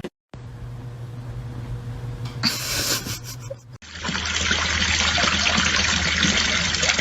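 Running water, a steady rush that begins suddenly about four seconds in, after a quieter stretch with a low hum.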